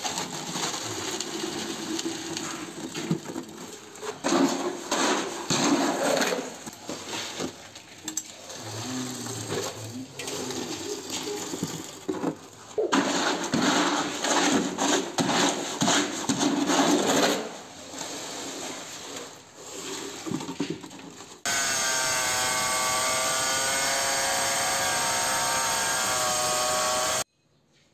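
Steel trowel scraping and scooping cement mortar in irregular strokes, first against the wall tiling and then in a wheelbarrow. About twenty seconds in, an electric angle grinder starts cutting a ceramic tile with a steady whine, then stops abruptly near the end.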